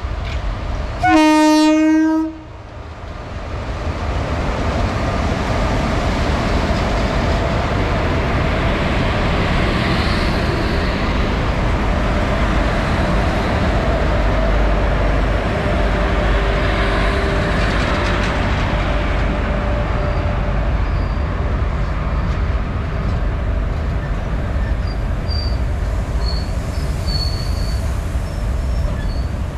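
Twin WAG-7 electric locomotives give one horn blast lasting about a second, then the locomotives and the freight wagons behind them rumble steadily past at close range, with a few faint high squeals near the end.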